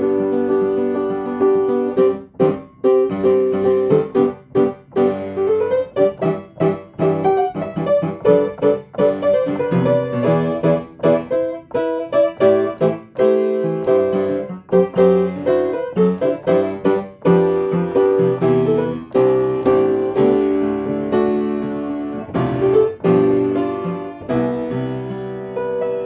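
Upright piano played solo: a flowing piece of many struck, ringing notes, with one middle-register note sounded again and again and brief breaths between phrases.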